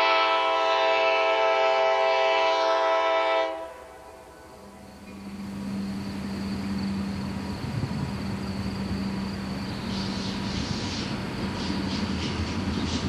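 CSX freight locomotive's air horn sounding one long chord that cuts off about three and a half seconds in, followed by the steady hum and growing rumble of the approaching diesel freight train, with wheels clicking over the track near the end.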